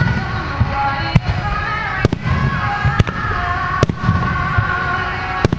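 Starmine fireworks: aerial shells bursting in sharp, loud bangs about once a second over a continuous deep rumble of launches and bursts.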